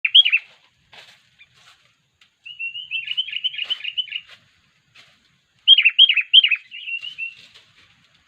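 Sooty-headed bulbul (kutilang) calling in short phrases of quick, downward-slurred chirps. There is a loud phrase at the start, a longer chattering run from about two and a half to four seconds, and another loud phrase about six seconds in that trails off into softer chatter.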